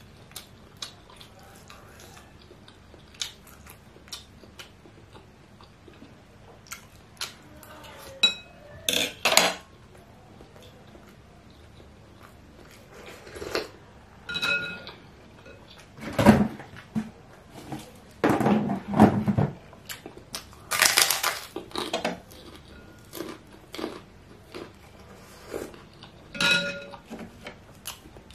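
A spoon clinking against a ceramic soup bowl, several strikes ringing briefly, among close-miked chewing and eating noises of meatball soup.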